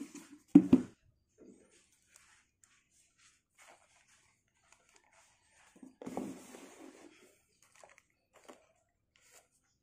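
Cardboard packaging and plastic wrap being handled: faint rustles and light taps from a paperboard box, with a sharp knock about half a second in and a louder stretch of handling noise around six seconds in.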